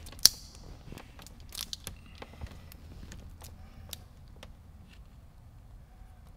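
Wet window tint film being handled and slid across car door glass: scattered crinkles and light ticks, with one sharp click just after the start.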